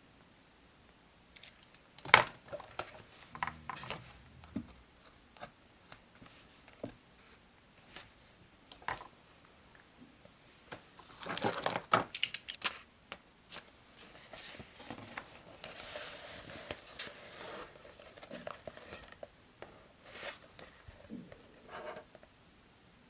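Paper and stationery being handled close up while a diary page is decorated: rustling and crinkling with scattered taps and clicks. There is a sharp click about two seconds in, and the busiest rustling is around the middle.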